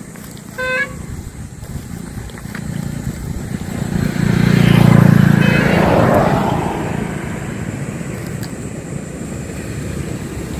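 A motor vehicle passing on the road, its engine noise swelling to the loudest point about five seconds in and then fading. A short horn toot sounds less than a second in.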